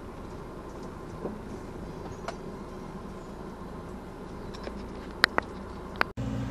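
Steady road and engine noise of a moving car, with a couple of sharp clicks about five seconds in. Just after six seconds it breaks off abruptly and a louder, steadier hum takes over.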